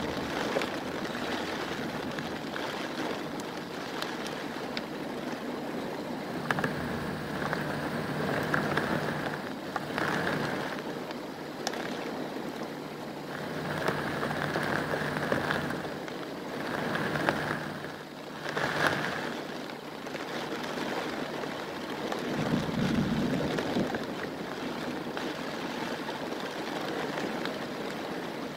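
Heavy monsoon rain pouring steadily, a continuous hiss of rain on foliage and ground. A low rumble swells briefly about three-quarters of the way through.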